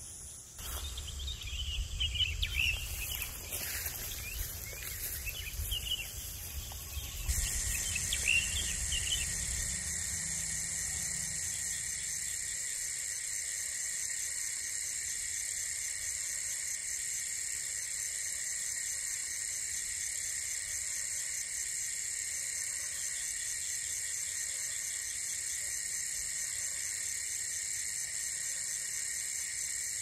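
Wind gusting on the microphone, with scattered chirping calls over it. About seven seconds in, a dense chorus of crickets and other night insects starts abruptly: a steady, finely pulsing trill that carries on while the wind dies away.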